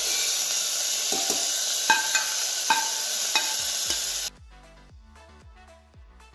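Chopped tomato sizzling loudly in hot ghee in a steel pressure cooker, with a few sharp, ringing metal clinks. About four seconds in, the sizzling cuts off abruptly, leaving quiet background music.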